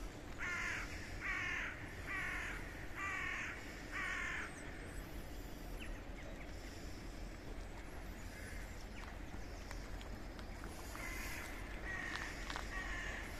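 A crow cawing five times in a row, about one harsh call a second, then a few shorter bird chirps near the end, over a steady background hiss.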